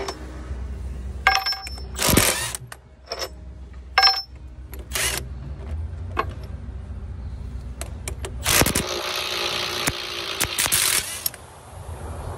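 Clinks and knocks of steel tools and sockets against the feller buncher's steel saw disc and tooth bolts. Then a Milwaukee right-angle cordless impact wrench runs on a saw-tooth bolt for about two and a half seconds.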